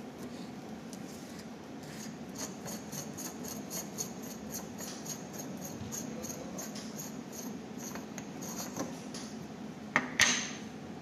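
Threaded front cover of a Honeywell pressure transmitter housing being unscrewed by hand: a steady run of faint scraping ticks from the threads, then two sharp clacks near the end.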